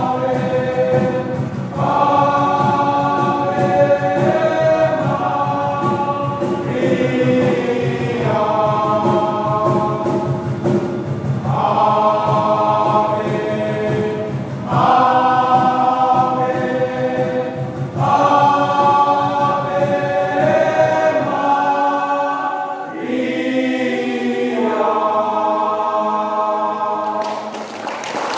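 Choir of young men singing a Marian hymn, phrase after phrase; the singing stops about a second before the end.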